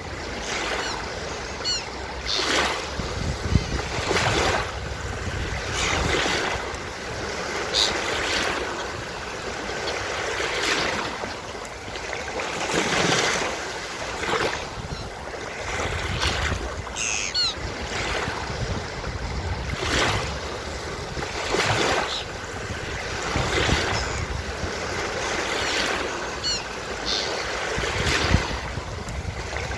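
Surf breaking and washing up a beach, wave after wave every couple of seconds, with seagulls giving short calls now and then.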